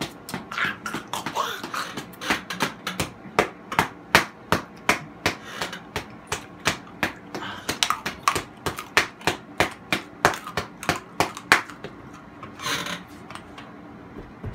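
A fast run of sharp taps or knocks, about three to four a second, that stops about twelve seconds in, followed by a short breathy sound from a person.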